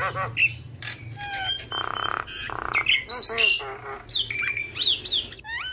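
Javan myna (jalak kebo) singing a busy, varied song: harsh squawks and rattles mixed with rapid clicks, short whistled glides and wavering notes, the fill-in phrases (isian) of a bird in full song.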